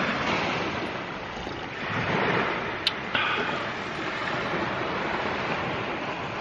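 Surf washing onto a beach, a steady rushing noise that swells a little about two seconds in, with one sharp click near the middle.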